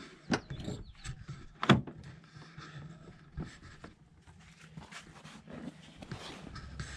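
A pickup truck's cab door opens and a rolled foam yoga mat is taken from the cab. There are a few sharp clicks and knocks, the loudest about a second and a half in, with rustling and handling noise between.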